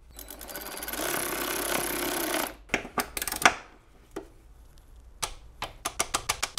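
Cordless electric ratchet spinning a bolt on the transmission crossmember for about two and a half seconds, a fast buzzing rattle. This is followed by a few sharp knocks of the socket and extension, and scattered quick clicks near the end.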